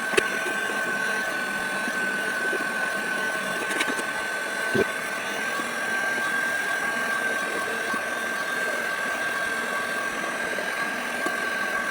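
Electric heat gun running steadily, its fan giving a constant high whine over a rush of hot air, with a single light knock about five seconds in.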